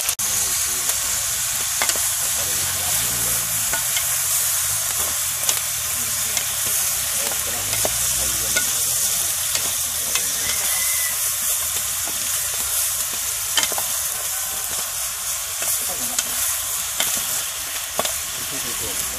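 Chunks of village chicken frying in oil in a metal pot over an open wood fire, with a steady sizzle, being stirred. Scattered small clicks and pops run through it. The meat is being browned before water is added.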